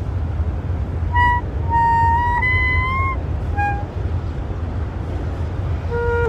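Solo woodwind improvising in short phrases: a few held notes high in its range, one bending slightly upward, then a short pause. Near the end a lower long note begins. A steady low rumble runs underneath.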